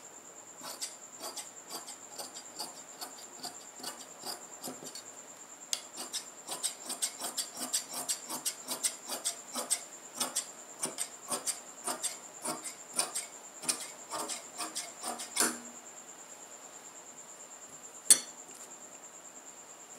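Large steel tailor's shears cutting through fabric: a long run of quick, crisp snips as the blades close again and again along the cutting line, stopping after about three-quarters of the time. Near the end, one sharp clack as the heavy shears are laid down on the table.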